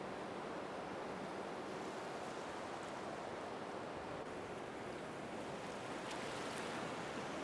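Steady ocean water noise, an even wash without any music, with a few faint high ticks near the end.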